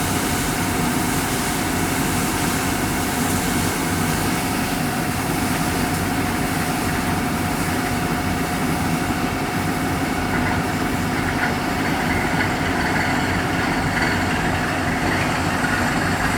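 Engine of a well-drilling machine running steadily at a constant speed. Some extra rough noise joins in about ten seconds in.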